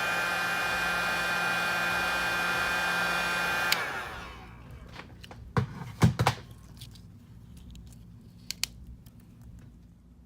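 Heat gun blowing steadily with a whining fan, switched off suddenly a few seconds in. A few light knocks of handling follow.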